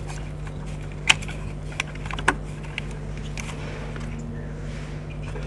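Plastic clicks and knocks as a BMW ignition coil is handled and pushed into the number-5 cylinder's spark-plug well, a sharp click about a second in being the loudest, over a steady low hum.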